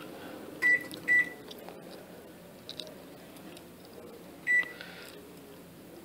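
LG convection microwave's control-panel beeps as its buttons are pressed to start convection preheating: two short, high beeps in quick succession about a second in, and one more about four and a half seconds in, over a faint steady hum.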